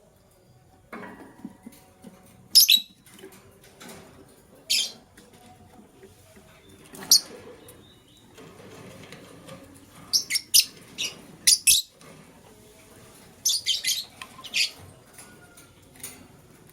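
Lovebirds giving short, shrill chirps, single ones spaced a few seconds apart and quick runs of several, about ten and about thirteen seconds in, with softer movement noise between them.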